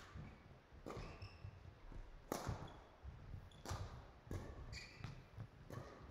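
Badminton rally: racket strings hitting the shuttlecock back and forth, a string of sharp hits roughly a second apart, with short squeaks of court shoes and footfalls between them.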